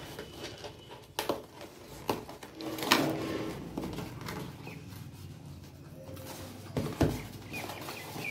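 Fingers picking at packing tape and tearing open the flap of a cardboard parcel box: scattered scratching and rustling with a few sharp clicks.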